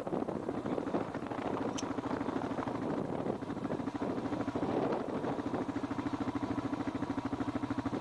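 Engine running steadily, its low pulsing settling into a fast, even beat from about halfway through; one short high chirp sounds about two seconds in.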